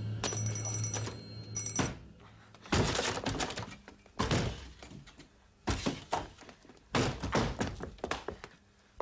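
A low hum, then from about three seconds in a series of heavy thuds, several strikes each followed by room echo.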